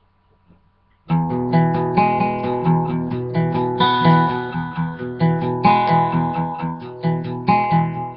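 Acoustic guitar strumming chords in a steady rhythm, starting about a second in: the instrumental intro of a song.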